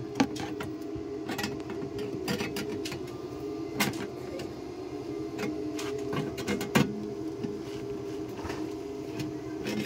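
Locking pliers clamping and shifting on a sheet-metal patch at a car's wheel arch, making scattered sharp metal clicks, the loudest about four and seven seconds in, over a steady machine hum.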